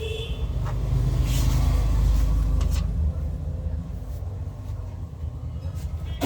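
Low steady rumble, louder for about two seconds starting a second in, with a few faint clicks.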